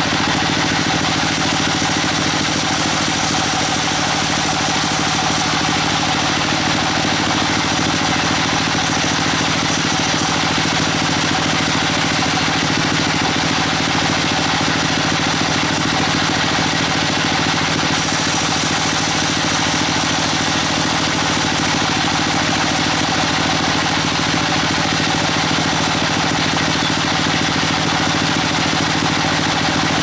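Band sawmill running, its vertical blade cutting lengthwise through a rain tree (trembesi) log over the steady drone of the mill's machinery. A high hiss comes and goes over the run of the cut.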